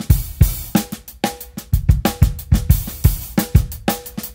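DW drum kit playing a steady groove, with kick drum, snare and hi-hat together in an even, repeating pattern.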